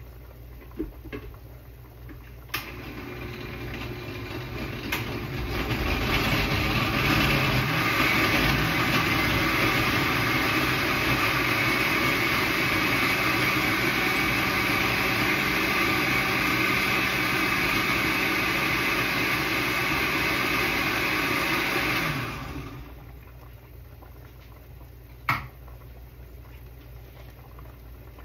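Electric grinder motor grinding guajillo chiles: it starts about two seconds in, builds up over a few seconds, runs steadily, then switches off about twenty-two seconds in and winds down with a falling tone. It runs just after being loosened a little because it would not grind, and a few sharp clicks of handling come before and after.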